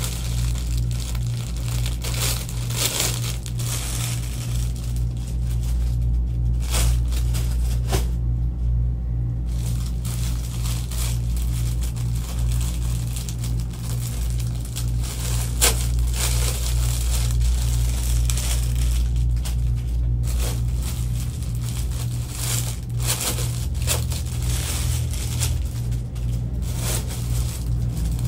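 Plastic packaging bags crinkling and rustling as bagged clothes are handled and unpacked, over a steady low hum.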